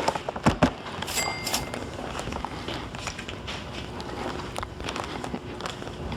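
Boxed fireworks being handled and moved: a couple of sharp knocks under a second in, a short high squeak, then a steady low rattle with light ticks.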